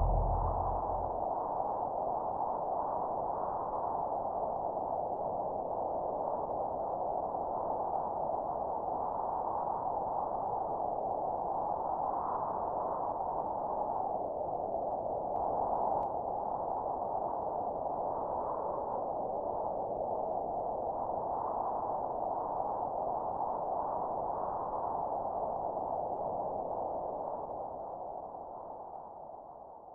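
Steady ambient sound-design drone, a hissing, filtered band of sound that swells gently now and then. A low rumble dies away about a second in, and the drone fades out over the last few seconds.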